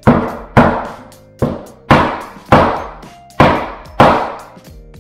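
Hammer striking a metal pull bar hooked on the end of a snap-together laminate plank: seven sharp blows at uneven spacing, each ringing briefly, knocking the plank's joint tight.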